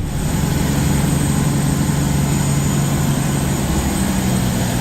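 Steady aircraft noise on the ground: a low hum with a couple of steady tones over an even hiss, starting abruptly. The Boeing 737-800's main engines are not yet started.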